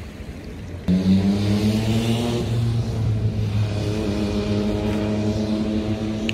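An engine running with a steady low-pitched hum that starts abruptly about a second in and holds a nearly even pitch.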